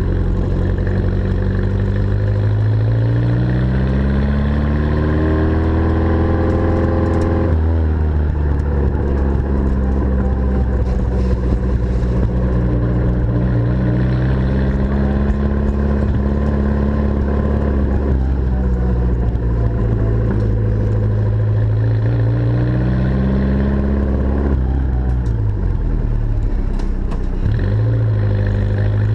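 Mini-based four-cylinder A-series engine of a restored Mosquito three-wheeler running on its first start after restoration. The revs rise steadily for a few seconds, then drop back suddenly about a quarter of the way in. Later they ease down, dip briefly near the end and pick up again.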